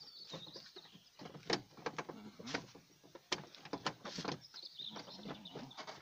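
Plastic rear door trim panel being lifted up and off the car door: a series of sharp plastic clicks and knocks with some scraping as its clips and hooks come free.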